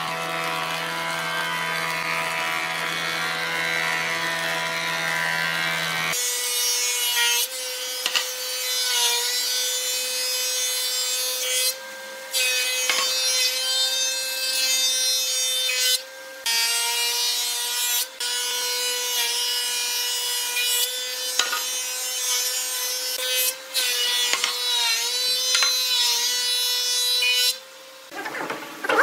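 Thickness planer running and shaving wooden boards as they feed through: a steady high motor whine over the rasp of the cutterhead. The sound drops out abruptly several times.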